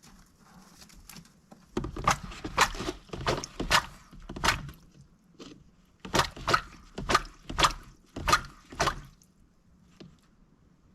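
Mallard drake splashing at a shallow water bowl: two runs of quick, splashy strokes, about two a second.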